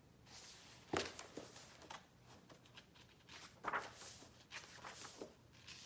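Pages of a hardcover book being turned: a few soft paper rustles and flaps, about a second in, then twice more near the end.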